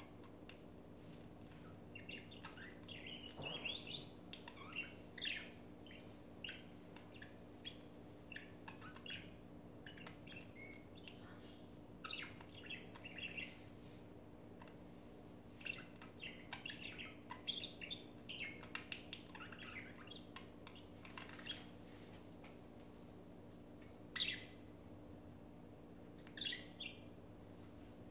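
Pet budgerigars chirping in quick, irregular runs of short tweets with pauses between, over a faint steady hum.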